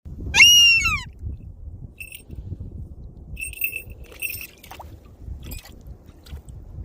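A northern goshawk calling: one loud, drawn-out wailing call that rises and falls, then a few shorter calls at the same pitch, one of them a quick run of several notes. A low rumble runs underneath.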